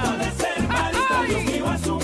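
Salsa-style song with a steady bass line and melodic lines over it, in a passage without sung words; the song's verses praise a Marist school, Colegio Nuestra Señora de Chiquinquirá.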